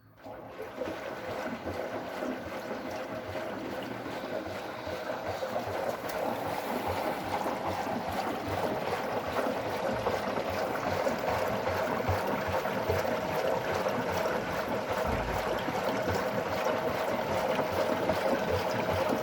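Washing machine taking in water: a steady rush of water starts suddenly and carries on, growing slightly louder over the first several seconds.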